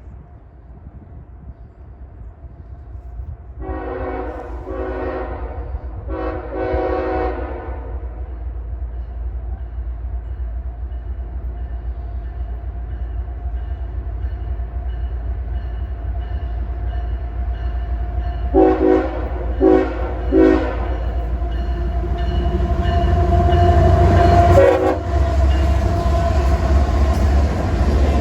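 Freight train's diesel locomotive approaching and sounding its multi-chime air horn: two long blasts, then several short blasts about fifteen seconds later. The low engine rumble grows louder throughout, and wheels clack on the rails as the train passes near the end.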